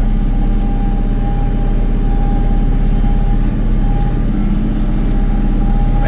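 Kioti NS6010 compact tractor's diesel engine running steadily, with a steady high whine over it.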